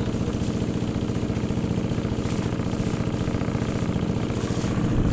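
Engine of a wooden motorboat running steadily under way, a fast even throb.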